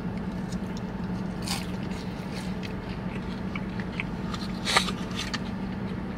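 A person biting and chewing a sauce-dipped waffle fry, with a few short crunches and clicks, the clearest about 1.5 and 5 seconds in, over a steady low hum.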